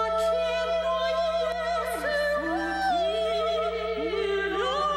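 Background music: a slow, operatic-style melody sung in long held notes that waver slightly and glide from one pitch to the next, over a steady low sustained note.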